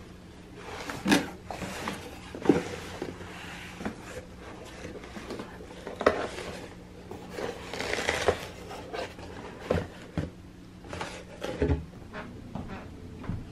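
Cardboard shipping box being opened by hand: flaps rustling and scraping, with several sharp knocks as the box and the flat cardboard box inside it are handled and lifted out. A faint steady low hum runs underneath.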